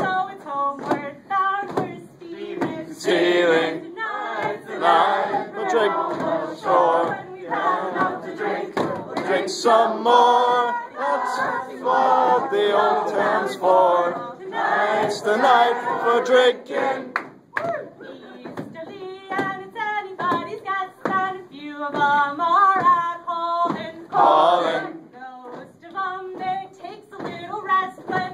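A mixed group of men and women singing a sea chanty together in chorus.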